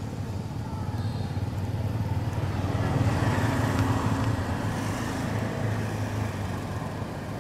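A motor vehicle's engine running with a steady low hum; it grows louder about three seconds in and eases off again.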